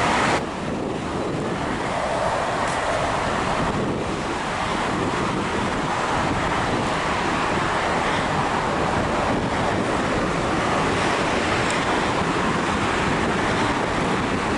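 Steady rushing roar of an Airbus A340-600 airliner moving on the ground behind its tow tractor, mixed with wind on the microphone. The sound jumps abruptly at an edit just after the start.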